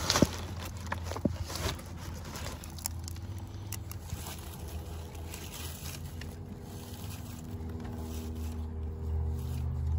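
A hand gently scraping and brushing loose sandy soil aside to uncover a freshly dug Russian tortoise nest, with a few knocks near the start. A steady low drone like a distant engine runs underneath.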